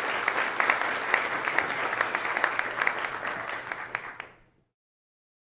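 Audience applauding, a dense patter of many hands clapping that fades out about four seconds in.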